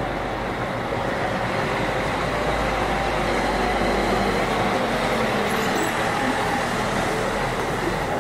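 Jet engines of an Airbus A380 on final approach: a steady, loud noise with a faint high whine over it.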